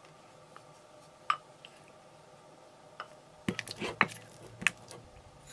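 Wooden spoon mixing softened cream cheese and butter in a glass bowl: a lone click, then in the second half a quick run of knocks and scrapes of the spoon against the glass.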